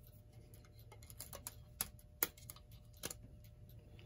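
Light, irregular clicks and taps: rubber bands being pulled off a freshly glued wooden clock case and the case being handled.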